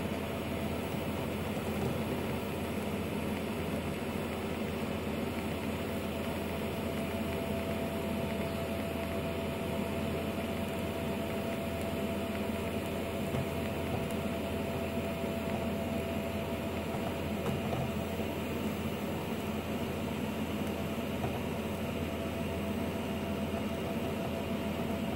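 TIG welding arc running continuously as a bead is laid along a steel sleeve: a steady hiss with a faint steady tone underneath.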